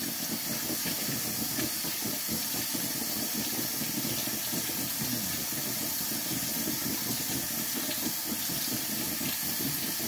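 Kitchen faucet running steadily into a stainless steel sink, the water splashing over hands being rinsed under it.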